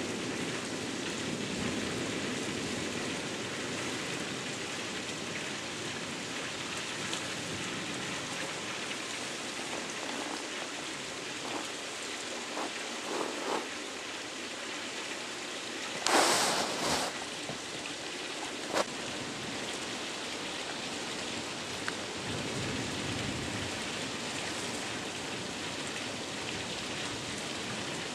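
Steady hiss of rain falling during a thunderstorm, with a short, louder rush of noise about halfway through and a few faint clicks.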